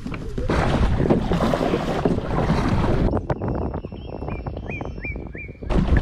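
Wind buffeting the microphone, with water sounds around the kayak. About halfway through the noise drops and a run of short, high chirps sounds, before the loud wind noise comes back near the end.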